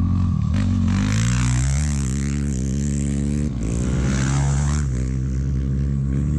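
Engine running loud and revving, its pitch rising and falling, with a brief break about three and a half seconds in.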